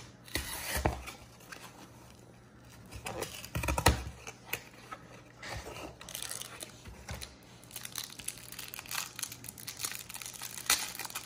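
A Magic: The Gathering VIP booster pack being opened by hand: its foil and paper wrapping crinkles and tears in irregular rustles and clicks, loudest about a second in, around four seconds in and near the end.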